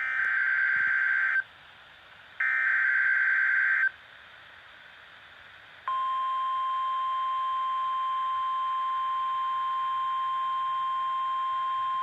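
Emergency Alert System tones from a NOAA Weather Radio receiver: two bursts of the SAME digital header, each a screech of about a second and a half with a second's gap between them, then faint hiss. About six seconds in, the steady 1050 Hz weather radio warning alarm tone starts and holds, announcing a new warning.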